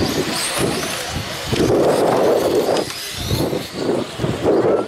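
A pack of 1/8-scale brushless electric RC cars accelerating away from the race start. High motor whine rises over a steady rush of noise.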